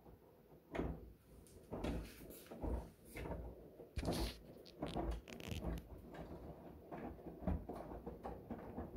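Miele WKR570WPS front-loading washing machine tumbling a load of dark laundry in sudsy water: irregular sloshes and swishes of water and wet clothes as the drum turns.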